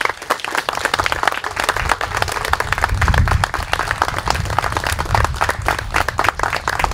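Audience applauding: a dense run of hand claps that starts all at once and keeps up steadily, with a low rumble underneath.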